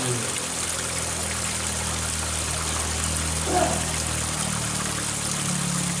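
Water pouring from a pipe and splashing steadily into the still water of a pond, with a low steady hum underneath.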